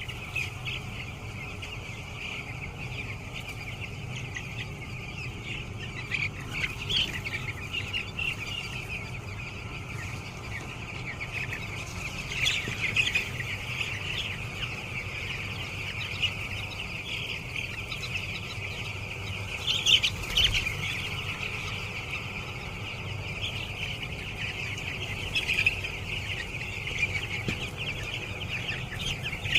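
A large flock of young chicks peeping nonstop, a dense chorus of high cheeps that swells louder now and then, over a faint low steady hum.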